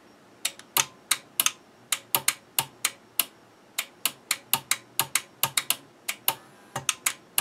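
Power rocker switch on an old APC Back-UPS 650 being flicked on and off rapidly, the switch and the relay it switches directly clicking each time. A string of sharp clicks, about four a second, some in quick pairs.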